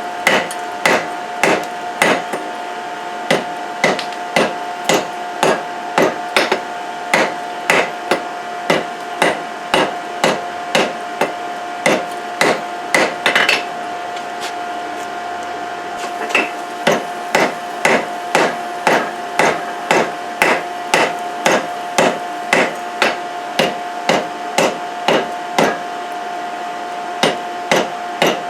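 Hammer blows about two a second, forging a billet of forge-welded chainsaw chain on an anvil, with a steady ringing tone underneath. The hammering pauses for a few seconds near the middle and briefly near the end.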